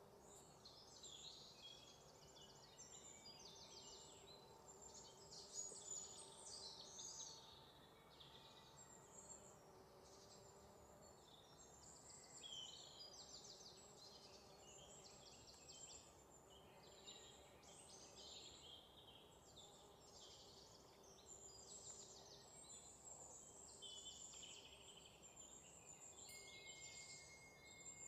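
Faint wild outdoor ambience: many birds chirping and trilling over one another without a break, with a steady high note joining near the end.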